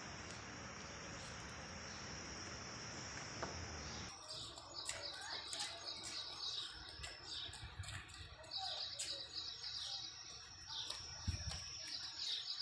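A steady high-pitched insect drone over a hiss of background noise. About four seconds in it cuts off abruptly and gives way to small birds chirping in short repeated trills, with a few faint clicks.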